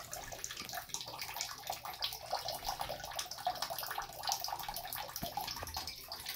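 Water in a filled bathtub sloshing and trickling, with many small irregular splashes.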